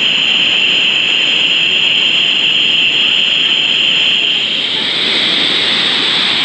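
Waterfall pouring close by: a loud, steady rush of falling water, its tone shifting slightly about four and a half seconds in.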